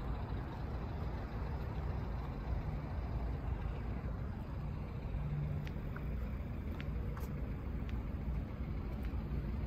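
Steady low rumble of open-air background noise, with a few faint clicks between about six and eight seconds in.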